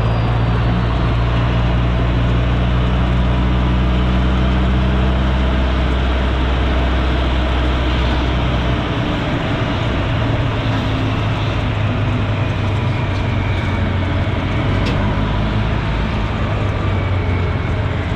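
Ride in an open-sided airport ramp cart: the steady running noise of the vehicle and air rushing past. A deep hum is strong at first and drops away about halfway through.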